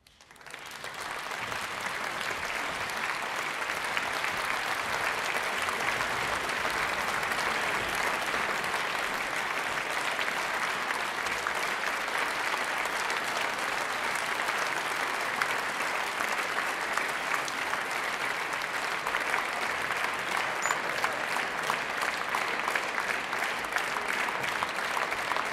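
Concert audience applauding: the clapping starts suddenly, swells within the first couple of seconds, then carries on as a steady, dense ovation.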